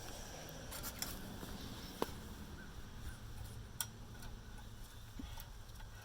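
A few faint clicks and taps of parts being handled, most likely the air filter cover's latches being snapped shut, over a low steady background rumble.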